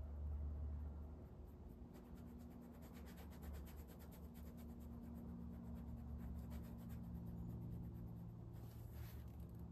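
Small paintbrush working oil paint onto gesso-primed stretched canvas: soft, quick scratching strokes of the bristles, thickest from about two seconds in to about seven seconds, over a steady low hum.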